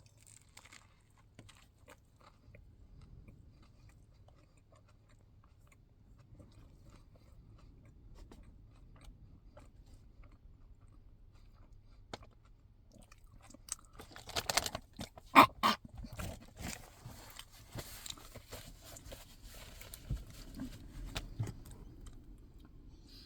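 A person chewing and biting food close to the microphone: quiet at first, then a run of loud crunches a little past halfway, with scattered smaller crunches after.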